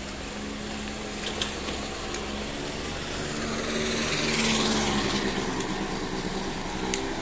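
A motor vehicle's engine running on the street, growing louder about four to five seconds in as it passes close by, then easing off.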